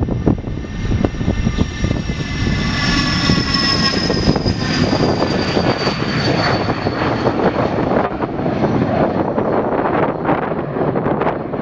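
Beechcraft BeechJet's twin Pratt & Whitney Canada JT15D turbofans at takeoff power as the jet rolls, lifts off and climbs away. A high turbine whine slides down in pitch as the jet passes, over steady, loud engine noise.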